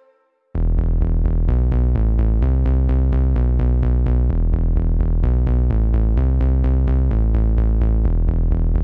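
Background electronic music: after a brief silence, a new synthesizer track starts about half a second in, with a steady pulse of repeated notes over a heavy bass.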